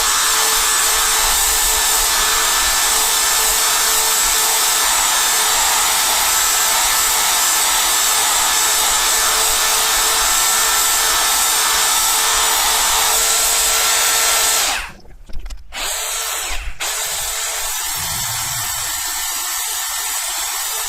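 Power drill spinning a polishing pad against a plastic motorcycle windscreen, with a steady motor whine. It stops about fifteen seconds in, and a quieter steady whir follows for the last few seconds.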